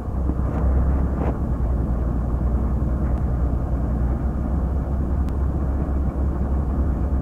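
Diesel engine of a Tata-P&H mobile crane running steadily, a low rumble, with a few faint metallic ticks.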